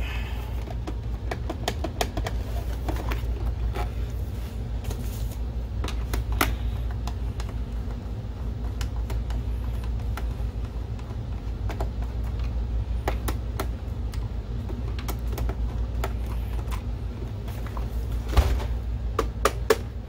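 Hands handling a plastic projector housing and a small hand screwdriver driving a case screw: scattered light clicks and knocks of plastic, with a few louder knocks near the end, over a steady low hum.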